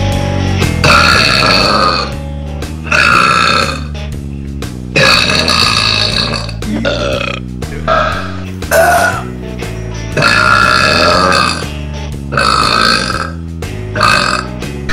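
A string of loud human burps, about eight in a row, some short and some drawn out for a second or more, over background music.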